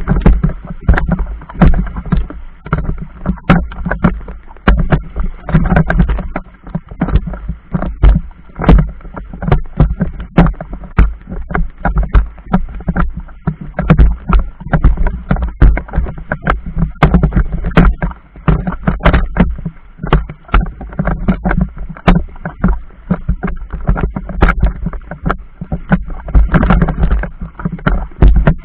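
Choppy river water slapping against a small boat's hull, with irregular knocks and splashes several times a second over a steady low rumble.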